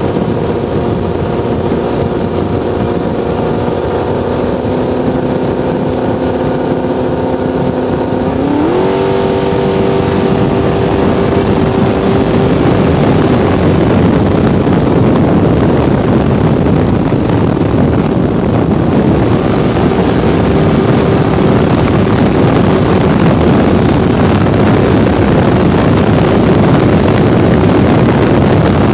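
A Scorpion picklefork boat's engine running steadily, then rising in pitch about eight seconds in as the throttle opens. After that the engine is buried under a rushing of wind and water as the boat runs faster.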